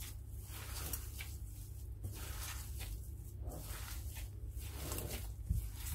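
Gloved hands kneading raw minced meat mixed with onion, parsley and breadcrumbs in a glass bowl: repeated soft squelches of the meat being squeezed and turned, with a brief knock near the end.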